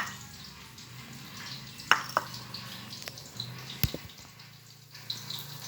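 A few light, sharp clinks and taps of kitchen utensils against dishes, spread out over a few seconds, over a faint steady low hum.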